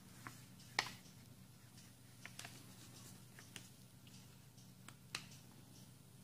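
Sheet of origami paper being folded and creased by hand: sparse crackles and light taps, the sharpest about a second in.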